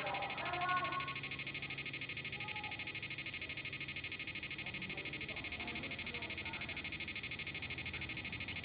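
Steady high-pitched electronic whine with a fast, even pulsing from a repaired inverter board running under a light-bulb load.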